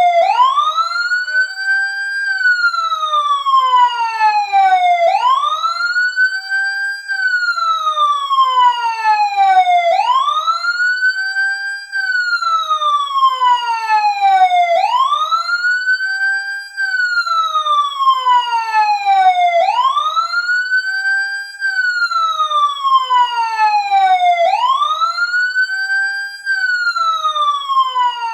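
Fire truck siren wail sounding as a countdown timer's end-of-time alarm, switching on abruptly: each cycle climbs quickly in pitch, holds briefly, then falls slowly, repeating about every five seconds.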